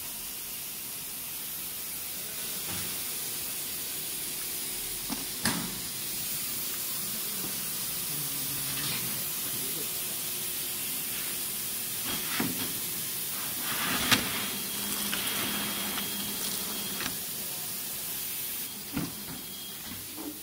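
Steady hissing noise from a CNC panel-router line, with a few sharp knocks spread through it and a thin whistling tone for a few seconds in the second half.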